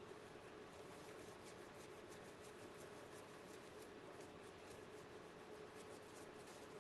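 Near silence: faint room tone, a steady low hum and hiss with light, irregular faint ticking.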